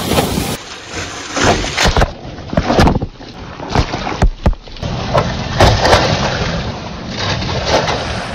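Water splashing and churning around tractors wading through a shallow river, with a constant rushing and several loud, sharp splashes close to the microphone. The sound changes abruptly in places.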